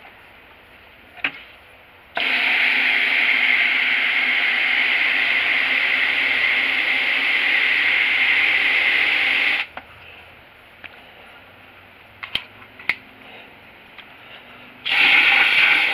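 Garden-hose spray wand spraying water into a plastic bucket of worm castings, mixing compost tea. The steady hiss and splash starts about two seconds in, stops after about seven seconds, and starts again near the end, with a few light clicks and knocks in the pause.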